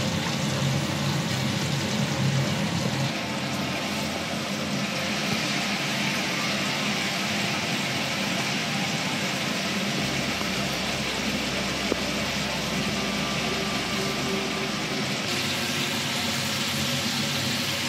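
Chicken wings deep-frying in hot sunflower oil in a wok: a steady sizzling, bubbling hiss.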